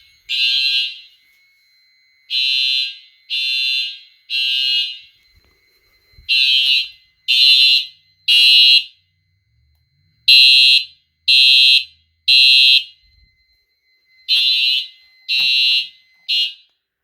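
Fire alarm horns sounding the code 3 (temporal-three) evacuation pattern: three half-second blasts, a pause of about a second and a half, then three more, over and over. The last set cuts off partway through its third blast near the end. A faint steady high tone runs underneath and stops with them.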